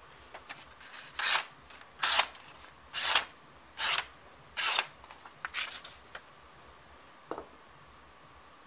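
The S35VN blade of a Zero Tolerance 0452Ti folding knife slicing through a sheet of paper, five quick swishing cuts about a second apart: a paper-cutting sharpness test. Lighter paper rustles follow, then a small knock as the knife is set down on the wooden boards.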